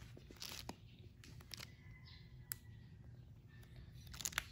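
Pages of a small paperback storybook being handled and turned: faint paper rustles and light clicks, with a pair of louder rustles near the end.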